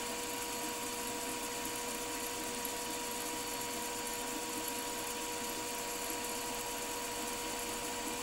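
Milling machine spindle running at a steady speed with a wobble pin in the chuck, giving a steady machine whine over a faint hiss, while the pin is used to centre the spindle on a bore.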